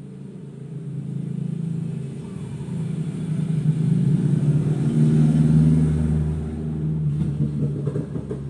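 Engine rumble of a passing motor vehicle, growing louder to a peak about five seconds in and then fading.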